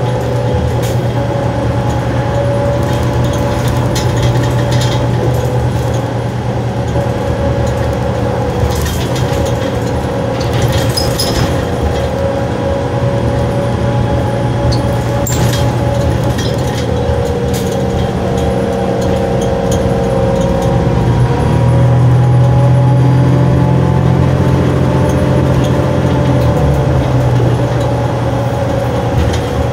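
Inside a 2007 New Flyer D40LF transit bus: the 8.9-litre Cummins ISL diesel running under way with a steady whine over it. The engine note grows stronger and louder about 21 seconds in and eases again a few seconds later. Scattered light rattles and clinks are heard around the middle.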